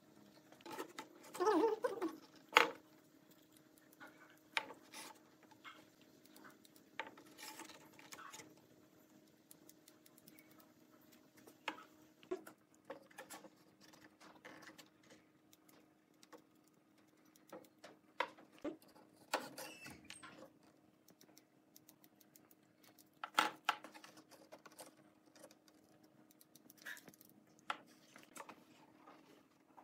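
Scattered light wooden clicks, taps and rubbing as a slotted, kerf-cut wooden strip is bent and pressed into place around a round table frame. There is a louder cluster of knocks about two seconds in and a sharp knock about three-quarters of the way through, over a faint steady hum.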